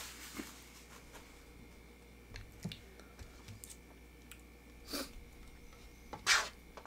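Quiet table sounds of a fork picking at chopped toppings on a foil-lined metal sheet pan: a few light clicks and taps, with two brief louder scrapes about five and six seconds in.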